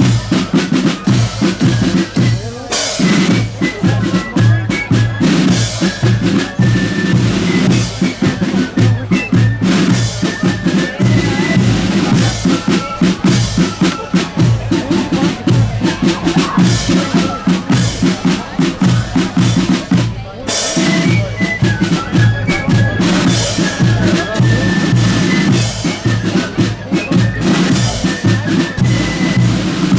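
Marching band drums playing a steady marching beat: rattling snare drums over the thud of a bass drum, with two brief breaks in the rhythm, about two and a half seconds in and about twenty seconds in.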